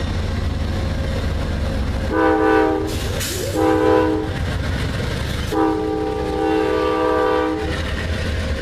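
Amtrak diesel locomotive's multi-chime air horn sounding three blasts, two short and then a longer one, over the steady rumble and wheel clatter of the passing passenger train.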